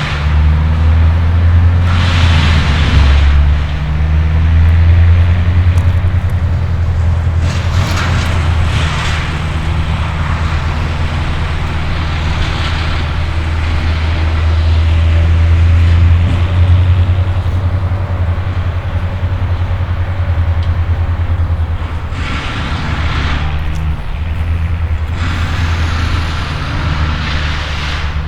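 Train passing, its diesel locomotive giving a loud, steady deep rumble. Several louder bursts of higher-pitched noise, each lasting one to three seconds, come over it.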